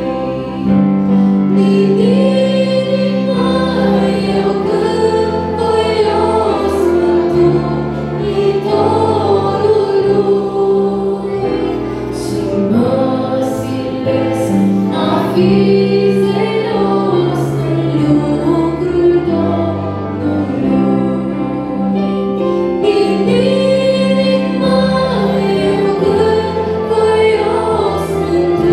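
A young woman singing an old Romanian Christian hymn solo into a microphone, amplified through the PA, over long held accompaniment chords.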